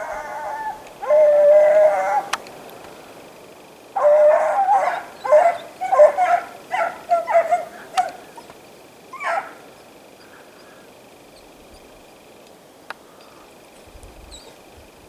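A pack of hare hounds baying as they work a hare's trail: a long drawn-out call near the start, then a run of quick overlapping barks, and a last call about nine seconds in.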